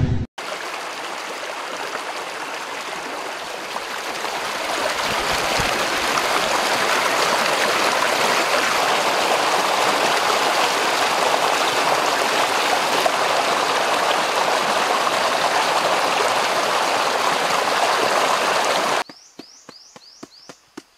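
Small stream rushing and splashing over rocks in a steady cascade, swelling slightly a few seconds in. It cuts off suddenly near the end, leaving a much quieter background with faint, repeated high chirps.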